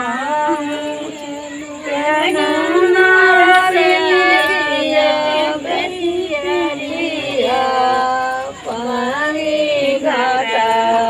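A group of women singing a devotional folk song together, unaccompanied, in long drawn-out phrases, with a short break about eight and a half seconds in.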